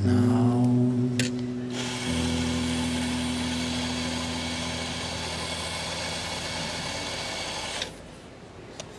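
Electric coffee grinder running steadily for about six seconds, grinding a dose for an espresso shot, starting about two seconds in and cutting off suddenly near the end.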